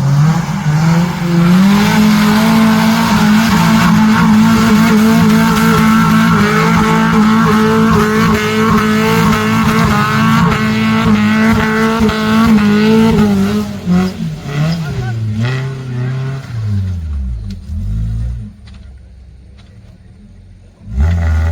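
Off-road vehicle's engine revving hard and held at high revs for about twelve seconds, then dropping and rising several times before easing off. There is a short loud burst near the end.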